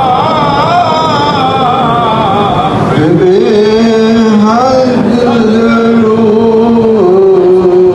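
Male voices chanting a slow, melodic religious recitation with long held notes. A second, deeper voice takes over about three seconds in.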